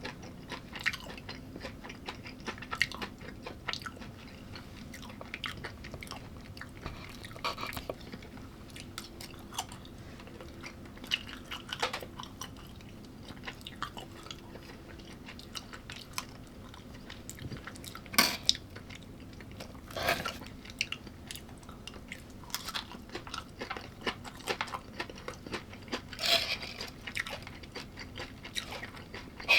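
A person chewing food close to the microphone, with many small wet mouth clicks and three louder crunches in the second half, over a faint steady hum.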